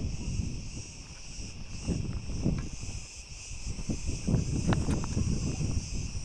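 Steady, high-pitched chorus of insects in dry scrub, with irregular low rustling of brush and a few faint clicks underneath.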